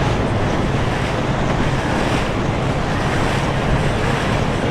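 Steady wind buffeting the microphone over rushing water from a boat under way on the river.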